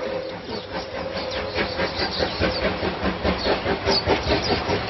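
Oigawa Railway steam locomotive passing, its beat coming in a steady rhythm of about three a second over a hiss of steam.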